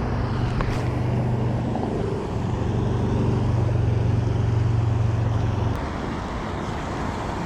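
A steady low motor hum that dips briefly about two seconds in and stops near the end, over constant wind-like noise.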